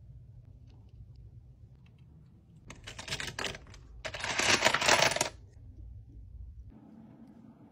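Stainless steel drinking straws clinking and rattling against one another as they are picked out of a bin, in two bursts, the second longer and louder.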